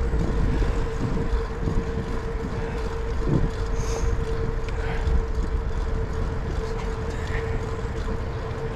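Riding a bicycle along a paved path: wind rumbles on the microphone, with a steady whine that holds one pitch throughout.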